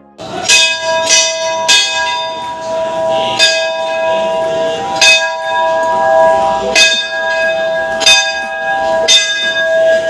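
Hanging brass temple bells rung by hand: about nine strikes at uneven intervals of one to two seconds, each leaving a ring that carries on under the next.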